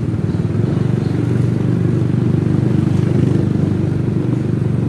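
Small motorcycle engine running steadily under way, with a fast pulsing rumble that rises a little in the middle and eases toward the end.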